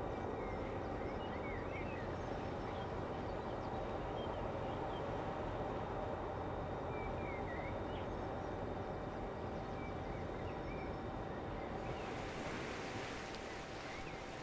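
Steady low rumble and hum from a passing oil/chemical tanker's machinery across the water, with small birds chirping now and then. A hiss swells near the end.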